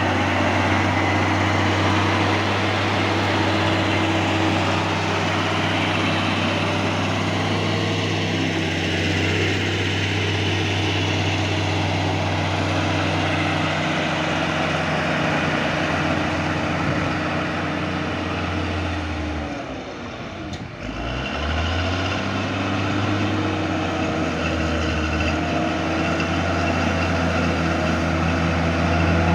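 Cat D6G bulldozer's diesel engine running steadily under load. About two-thirds of the way through, the revs briefly drop, then climb back up.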